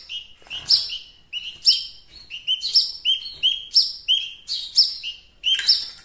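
Hungry fledgling bird's begging calls: a steady run of short, high chirps, about two a second, as it calls to be hand-fed.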